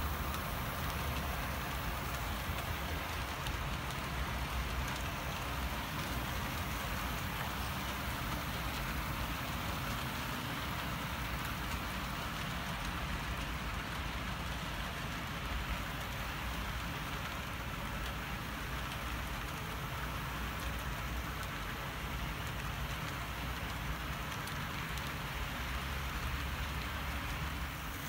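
HO-scale model trains rolling along the track: a steady, continuous running noise of wheels on rails and motors, with a fine clicking texture.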